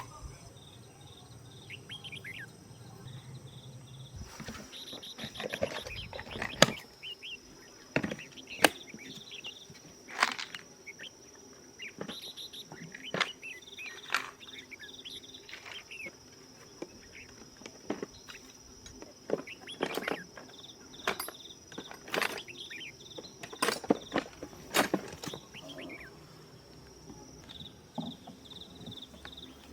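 Insects trilling steadily in the background, with irregular sharp clicks and knocks of hand work on the chainsaw, about one or two a second.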